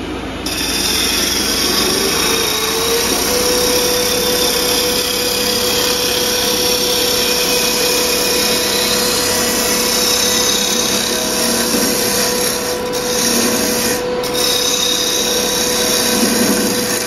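A gouge cutting a spinning ambrosia maple blank on a wood lathe, its bevel rubbing as it glides along the wood: a steady hiss of shavings coming off the cut. A steady tone rises slightly and settles about two to three seconds in.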